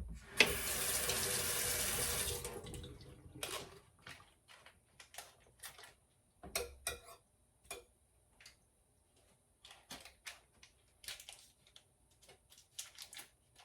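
Water running from a kitchen tap into the sink for about two seconds, then turned off, followed by a scattering of light clicks and knocks.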